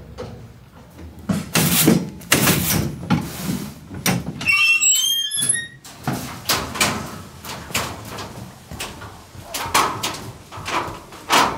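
Boots being cleaned at a kauri-dieback boot-cleaning station, scrubbed over its metal grate and brushes in a series of short scraping bursts. A bird calls briefly with quick gliding whistles about halfway through.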